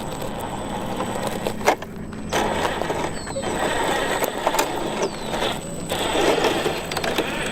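A remote-control truck driving over rough ground, its running noise breaking off in brief pauses a couple of times.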